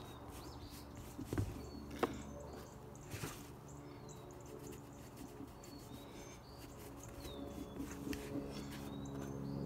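Small birds chirping in the background, short downward-sliding chirps scattered throughout, over a low steady hum. A few sharp knocks and soft rubbing come from a cloth rag working oil into a leather boot on a plastic workbench, the loudest knocks about one and two seconds in.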